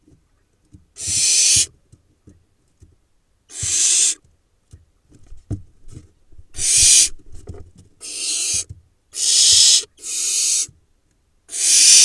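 Barn owl nestlings giving harsh hissing calls, about seven in all, each lasting well under a second, with soft knocks and scrabbling between them as the chicks move about the twigs and floor of the nest box.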